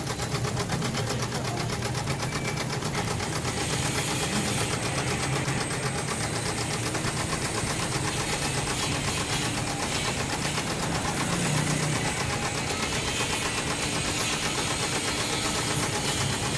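Factory machinery running steadily with a fast, even pulsing chatter, a hiss above it that changes about three and a half seconds in.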